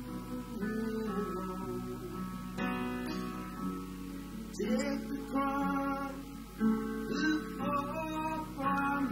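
Live acoustic song: acoustic guitar strummed, with Roland digital piano accompaniment and a man singing.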